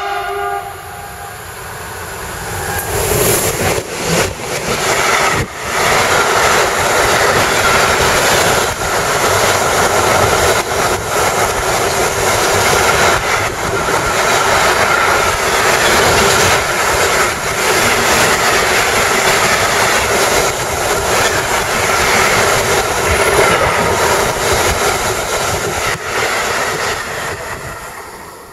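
Long freight train of bulk hopper wagons behind an electric locomotive passing close by, opening on the last of a horn blast. The loud rumble and rattle of the wagons builds over the first few seconds, with repeated clacks of wheels over rail joints, then fades near the end as the train goes by.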